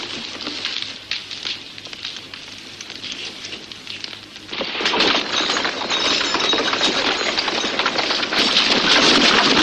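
Sparse crackling, then about halfway a sudden, much louder dense clatter that keeps building: many horses' hooves as a cavalry charge gets under way.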